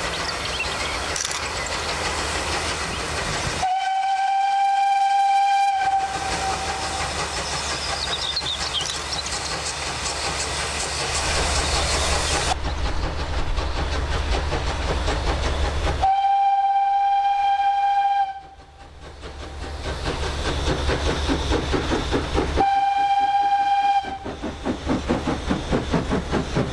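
Small steam tank locomotive working a train with its exhaust chuffing, sounding three long blasts on its whistle, each a steady high note. The chuffing comes through as a regular beat in the last few seconds as the engine draws close.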